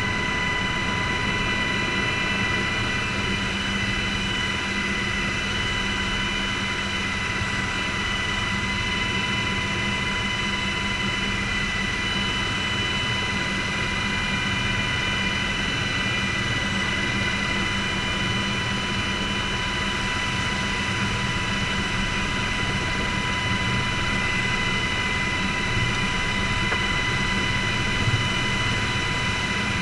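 Military helicopter heard from inside the cockpit: a steady engine and rotor drone with a constant high-pitched whine running through it.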